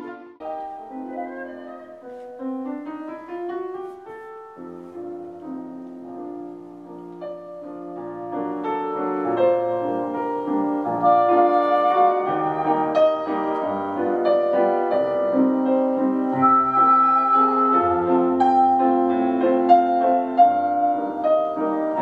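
Classical piano with orchestra, flutes among the woodwinds, played through a Samsung HW-K550 3.1 soundbar and its wireless subwoofer. It starts soft just after a brief dropout and grows louder from about eight seconds in.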